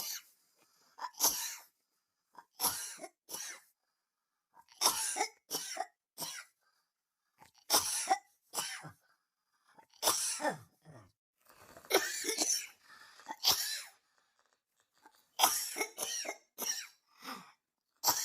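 A person coughing over and over in short fits of one to three coughs, each fit followed by a brief silent pause.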